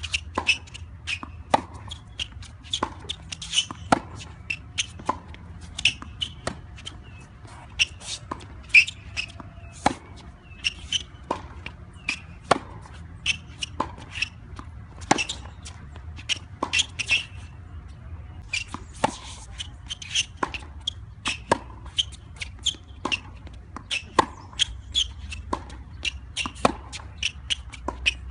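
Tennis balls being struck by rackets and bouncing on a hard court during a baseline rally: a steady run of sharp knocks, one or two a second, some loud and some fainter.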